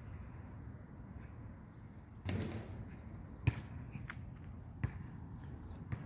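Footsteps of a person walking, a dull thud about every second, over a low steady rumble.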